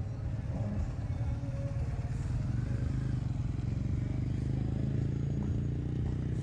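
Motor vehicle engine running close by, a low pulsing rumble that grows a little louder through the middle and eases near the end, with voices behind it.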